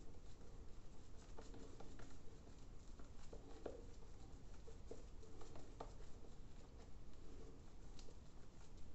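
Disposable three-blade cartridge razor (Gillette Blue3) scraping through shaving lather and stubble in short, repeated strokes: a faint, irregular scratchy rasp with each pass.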